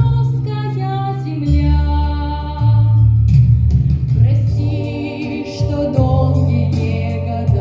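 Music: a song with singing over sustained bass notes that change about once a second.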